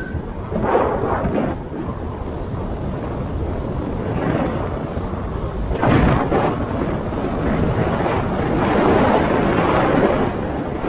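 Wind buffeting the microphone of a camera on a moving scooter: a loud rushing noise that swells in gusts, with a sharp surge about six seconds in and another swell near the end.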